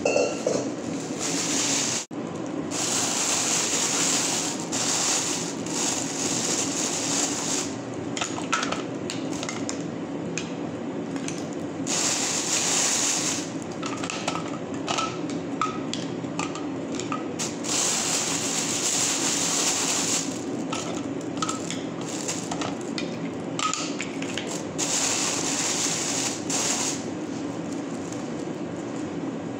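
Plastic bags rustling and crinkling in repeated spells as seafood and vegetables are handled and packed into them, over a steady background hum.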